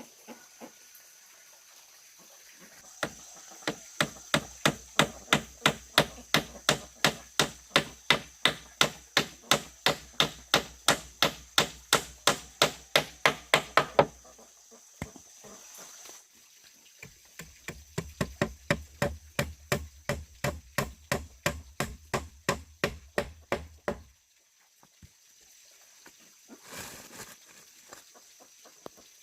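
Rapid, even blows of a tool striking wood, about three a second, in two runs: a long run of about eleven seconds, then after a short pause a run of about six seconds. A steady thin high tone sounds in the background.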